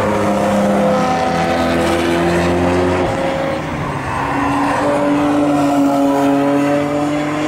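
Car engine heard from inside the car during a fast drive: its note sags slightly for about three seconds, drops away briefly around three to four seconds in, then rises steadily as the car accelerates.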